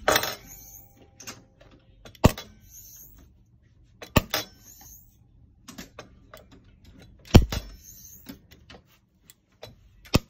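Capacitor-discharge welder firing its gun onto a steel bar: about five sharp cracks of the discharge, a couple of seconds apart, with small handling clicks between them. The discharges show the welder working properly.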